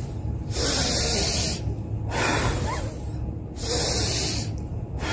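A woman blowing out hard through her mouth at a tissue held in front of her face, twice, each breath about a second long, with a softer in-breath between them.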